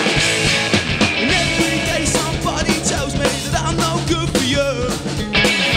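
A rock band playing live, with electric guitars and a drum kit.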